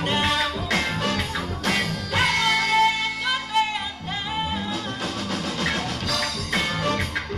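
A band playing a song with singing, with a steady drum beat; from about two seconds in the drums drop back under a held, wavering note for a couple of seconds before the beat comes back in full.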